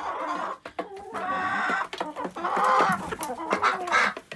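Chickens clucking in several short runs of calls.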